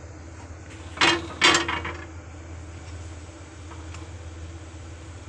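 Two brief clatters of kitchen items, about a second in and half a second apart, over a steady low hum, as burger buns are warmed on a flat iron griddle.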